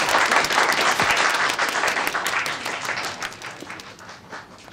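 A roomful of people applauding, a dense patter of many hands clapping. It is loud at first and dies away over the last couple of seconds.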